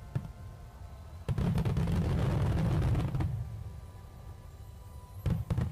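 Aerial firework shells bursting: a loud low boom with crackling starts a little over a second in and dies away over about two seconds, then a few sharp pops come near the end.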